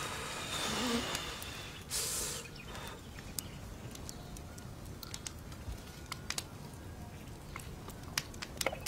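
Close eating sounds of a man tearing and chewing roasted meat: a couple of seconds of rustling and tearing, then many small wet clicks and smacks of chewing.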